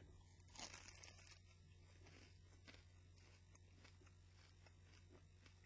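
Faint crunch of a bite into a hot shortcrust-pastry toffee apple pie, then quiet chewing with scattered small crackles, over a low steady hum.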